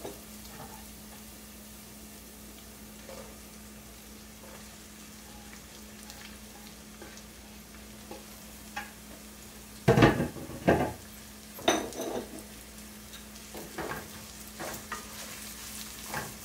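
Cumin seeds, ginger-garlic paste and a dried red chili frying in oil in a sauté pan with a quiet, steady sizzle. About ten seconds in, a few loud knocks and scrapes as chopped red onion goes into the pan from a board and is stirred.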